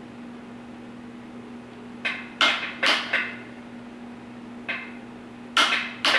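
Click-type torque wrench clicking sharply on the Cummins injection pump gear nut at final torque, several clicks, mostly in pairs, each with a short metallic ring. A steady low hum runs underneath.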